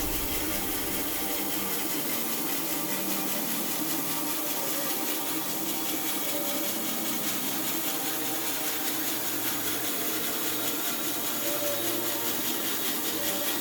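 A power saw running steadily through a wooden log, a continuous sawing noise with a faint machine hum underneath.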